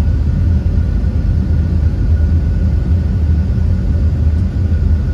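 Boeing 747-8 flight simulator's takeoff-roll sound: a steady low rumble of engines at takeoff thrust and wheels rolling down the runway as the jet accelerates, with a faint steady whine above it.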